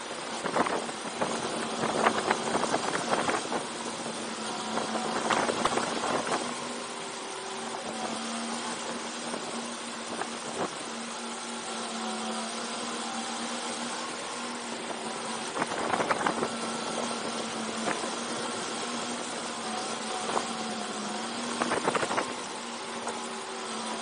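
Go-kart engine running at a fairly steady pitch, heard from on board the kart, with several short, rougher bursts of noise every few seconds.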